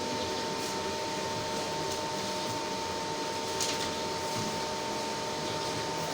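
Steady machine hum with a constant whine, and a few faint computer-keyboard clicks, about half a second in and again past the middle.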